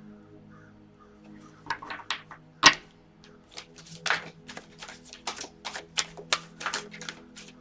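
Tarot cards being shuffled and handled: a run of irregular slaps and clicks of card on card, starting about two seconds in, with one sharp loud tap shortly after.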